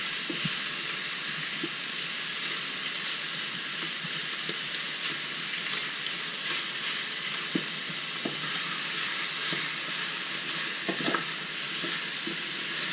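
Sliced paua (abalone) and onions sizzling steadily as they fast-fry in hot oil in a stainless steel saucepan, stirred with a wooden spoon that knocks and scrapes against the pan now and then.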